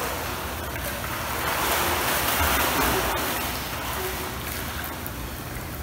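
Pool water splashing and churning as a child swims through it, loudest around two seconds in.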